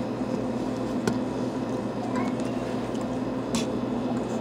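Steady low mechanical hum of room equipment, with two short clicks from the phone being handled, about a second in and past the middle.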